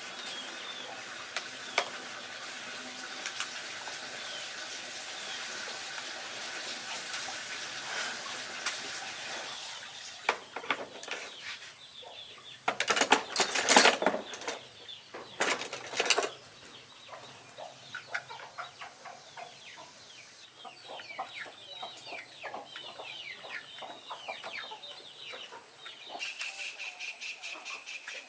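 Chickens clucking and calling, with a loud, noisy flurry about halfway through that lasts a few seconds, followed by many short falling calls.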